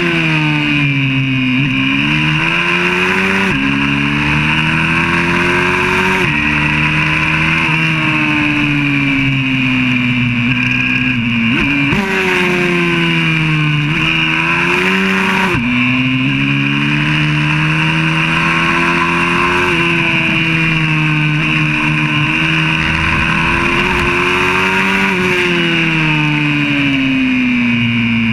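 YCF 125cc four-stroke pit bike engine heard from an onboard camera at racing speed. The revs climb through the gears with a sudden drop at each upshift, and fall away for corners before rising again.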